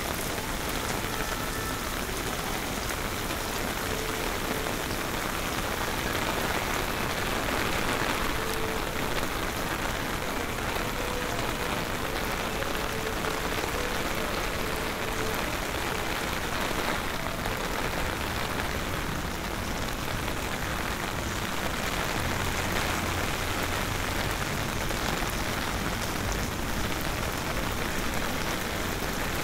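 Steady, heavy rain falling and splashing on pavement and hard surfaces, driven by an approaching hurricane. A low hum comes in for the last several seconds.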